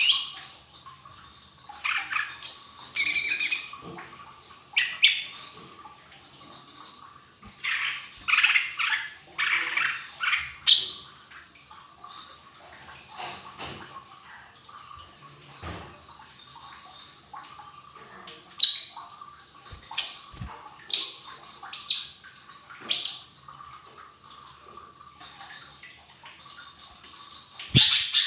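Lesser green leafbird (cucak ijo mini) calling: clusters of quick, high chirps and whistles, and later a run of single short notes about a second apart, over a faint steady hum.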